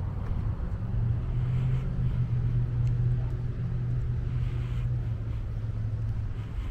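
A car engine running at low speed: a steady low rumble that grows louder about a second in.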